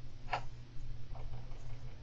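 Two small clicks from a golden hamster moving about its cage: a sharp one about a third of a second in and a fainter one around the middle, over a low steady hum.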